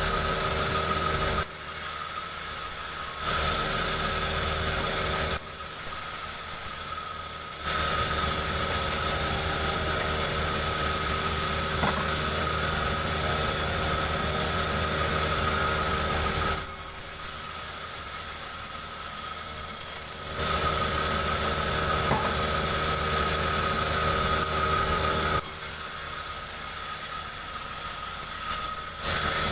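Engine-driven saw, most likely a chainsaw, running steadily while ripping a jengkol log lengthwise; its loudness dips for a couple of seconds four times and comes back.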